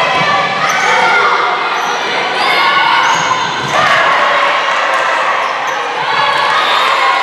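Volleyball rally on a gym court: players shouting and calling, the ball being hit, and short high squeaks of shoes on the hardwood floor.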